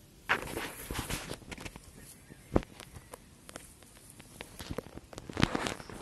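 Close handling noise from a fishing rod with a spinning reel and bankside grass: bursts of rustling and crackling, a single sharp click about two and a half seconds in, and another rustling burst near the end.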